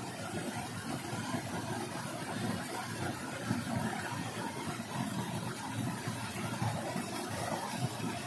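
Small waterfall pouring into a rock pool: a steady rushing, splashing rumble.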